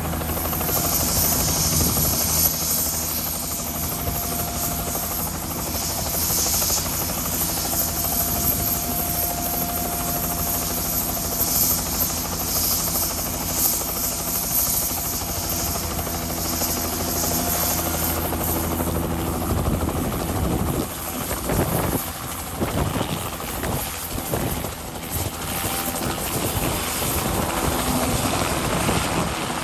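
Tour helicopter's rotor and engine running with a steady hum. About two-thirds of the way through, the sound turns uneven and gusty.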